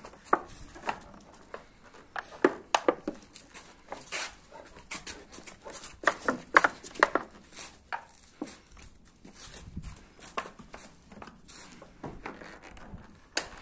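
Young Boerboel puppy romping on brick paving, its paws and claws clicking and scuffing irregularly.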